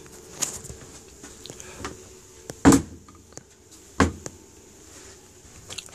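Caravan kitchen cupboard doors being opened and shut: a handful of sharp knocks and clunks, the loudest about two and a half seconds in and another about four seconds in.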